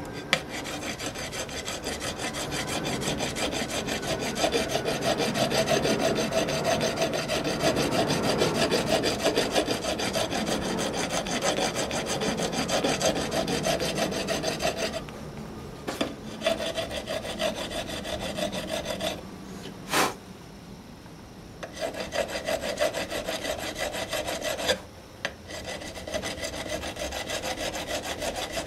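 Hand file scraping back and forth across an aluminum roller rocker arm clamped in a bench vise, smoothing out the spot ground away so the rocker clears its stud. Steady strokes at first, then several shorter bouts with brief pauses, and one sharp tap about twenty seconds in.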